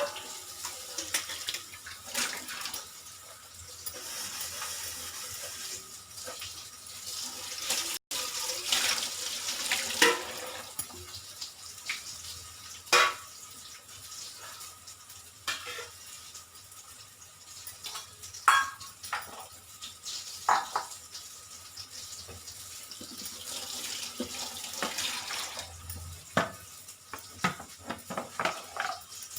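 Raw banana slices deep-frying in hot oil in a kadhai, a steady sizzling hiss, with occasional sharp clinks of a utensil against the pan.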